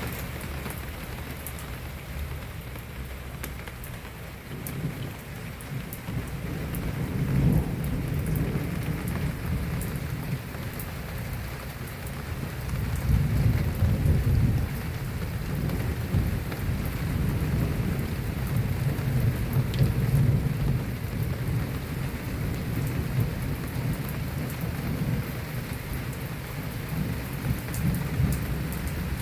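Heavy rain falling steadily, with deep rumbles that swell about seven seconds in and again around thirteen seconds.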